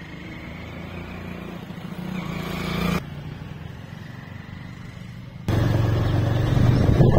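Motorcycle engines running, growing louder over the first three seconds as the bikes approach. After abrupt cuts the drone is quieter for a couple of seconds, then much louder and steadier near the end, heard close up.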